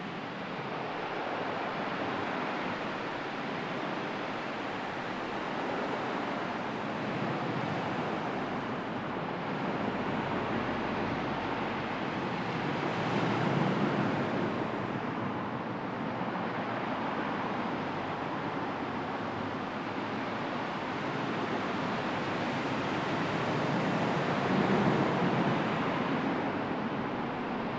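Sea waves washing on the shore: a steady rush of surf that swells louder about halfway through and again near the end.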